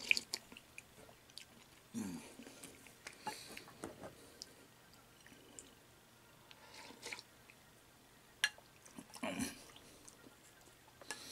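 A person eating cold beet soup (svekolnik) with a spoon: faint chewing, slurping and sipping from the bowl, with a few light clicks of the spoon.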